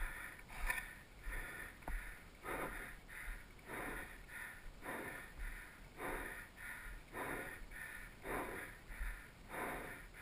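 Mountain biker breathing hard and steadily into a helmet-mounted camera while pushing his bike uphill on foot, a breath in or out about every half second.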